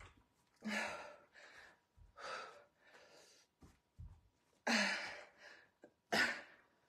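A woman breathing hard from exertion, with sharp, airy exhales about once a second, a few of them slightly voiced like a grunt. Soft low thuds land about every two seconds.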